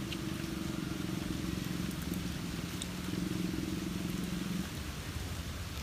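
A motor hums steadily and stops about four and a half seconds in, over an even outdoor hiss.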